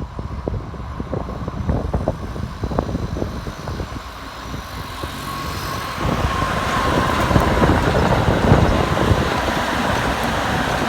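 Keikyu electric train running past. Its noise builds from about four seconds in and jumps up a couple of seconds later, with a motor whine slowly falling in pitch.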